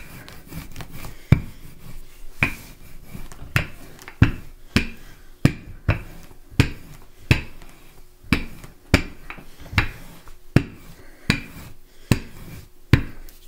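Wooden rolling pin rolling out pie-crust dough on a floured countertop: a sharp wooden clack with each back-and-forth stroke, about one every half second to second.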